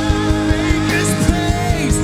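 Live worship band music with a steady drum beat, held chords and a sung melody.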